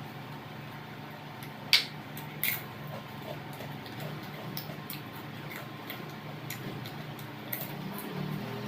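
Mukbang eating sounds: scattered small mouth and utensil clicks, with two sharper clicks about two seconds in, over a low steady hum.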